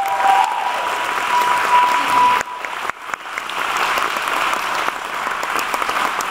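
Audience applause, dense and steady, with the performers on stage clapping along. A thin steady high tone sits over the clapping for the first two and a half seconds, then the sound drops out briefly before the applause carries on.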